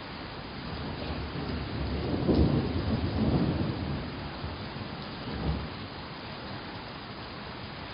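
Steady rain, with a roll of thunder about two seconds in that lasts a couple of seconds and a shorter rumble of thunder around five and a half seconds in.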